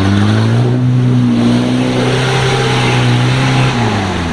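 A 4x4's engine revs up, holds a steady high pitch for about three seconds, then drops off near the end as the revs come down.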